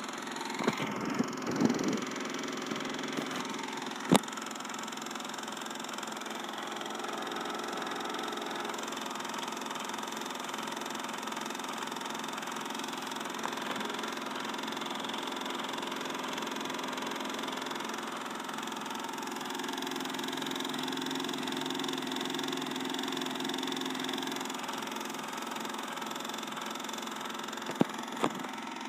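Bell & Howell 1680 16mm film projector running with a steady mechanical hum, its lamp lit. Several sharp clicks come in the first few seconds, a loud one about four seconds in, and two more near the end.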